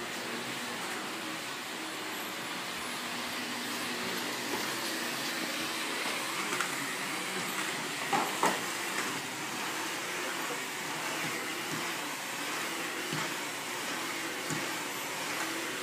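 Canister vacuum cleaner running steadily while vacuuming a hard floor, with a few short knocks about halfway through.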